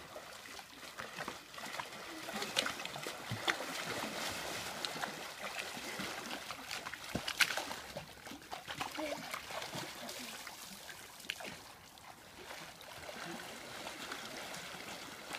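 Pool water splashing and sloshing as a dog and two people swim, with a few sharper splashes among steady lapping.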